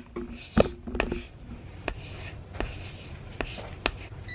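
A couple of handling knocks close to the microphone, then footsteps on a hard floor, a sharp tap about every second, over a low steady background hum.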